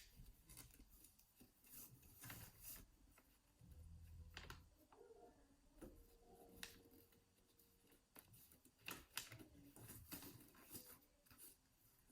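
Near silence with faint, scattered clicks and rustles of hands working stretchy weaving loops on a toy weaving loom.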